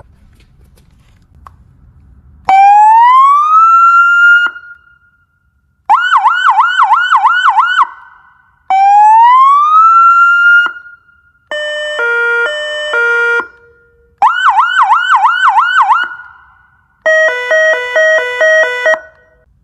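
A 400 W electronic police siren and speaker cycles through its tones in short bursts with brief pauses between them, starting about two and a half seconds in. The sequence runs: a rising wail that levels off, a fast yelp warbling about four times a second, the wail again, a stepped hi-lo tone, the yelp again, and a rapid stepped pulsing tone near the end.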